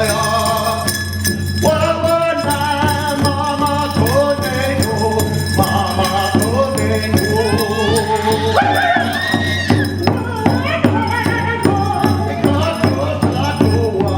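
A man singing a Native American song in the Mohican language, his voice sliding between held notes, over a steady shaken-rattle rhythm.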